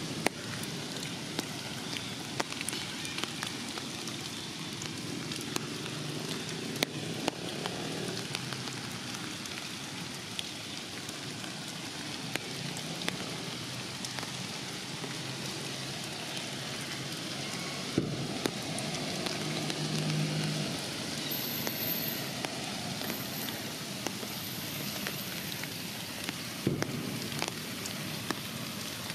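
Steady rain falling on forest foliage: a continuous hiss with scattered raindrops ticking sharply on nearby leaves and branches.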